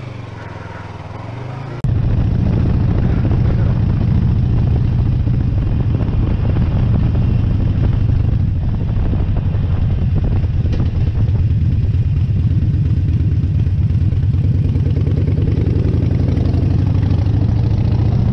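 Cruiser motorcycle engine running steadily at low speed, a loud low rumble with rapid even pulses. It cuts in suddenly about two seconds in, after a quieter stretch of another bike's engine.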